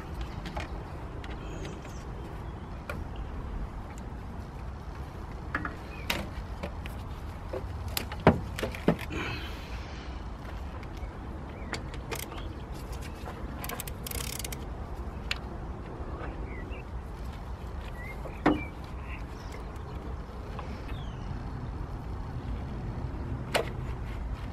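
Scattered clicks, taps and knocks of hand tools and parts as hoses and intake pipes are worked loose in a car's engine bay, with sharper knocks about 8 seconds in and again around 18 seconds, over a steady low background rumble.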